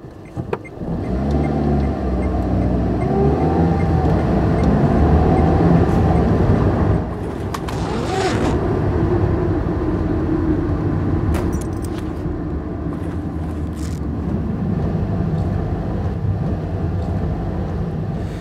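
A car driving on a wet road: steady engine and tyre noise, with the engine's pitch rising and falling in the first few seconds. A short hiss comes about eight seconds in, and a few clicks follow later.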